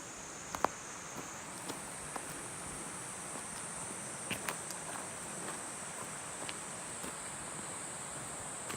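Insects trilling steadily at a high pitch; about a second and a half in, the chorus shifts to a higher note. A few scattered light clicks sound over it.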